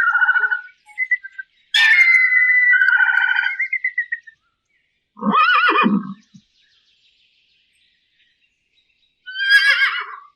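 Four separate animal calls, each a short pitched cry with a wavering tone, broken by stretches of dead silence.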